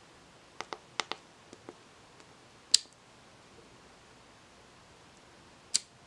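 A few soft taps on a membrane keypad as a passcode is entered, then a 12 V solenoid door lock clacks as it pulls open, and clacks again three seconds later as it releases at the end of its timed unlock.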